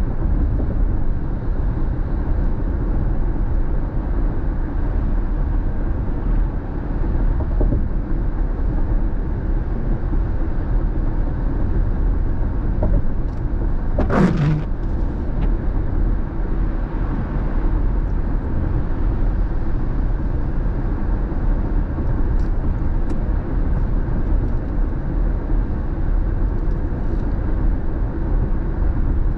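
Steady road and tyre noise with engine hum, heard from inside a car cabin at freeway speed. About halfway through there is one brief sound that sweeps quickly down in pitch.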